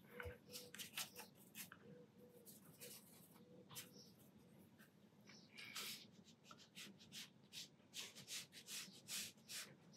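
Faint, soft scratches and swishes of a watercolour brush scrubbing paint around on a palette, then stroking paint onto paper.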